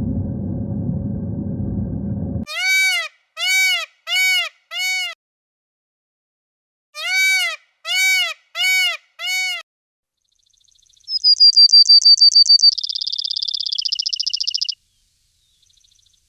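Steady low rumbling noise that cuts off about two seconds in, followed by animal calls: two sets of four short calls, each rising then falling in pitch, then a high, fast trill that drops to a lower pitch partway through.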